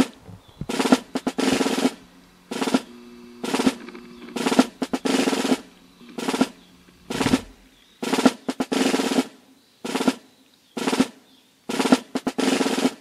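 Background music built on a drum loop: a repeating pattern of two short drum hits followed by a longer snare roll, over and over, with a few low held notes underneath.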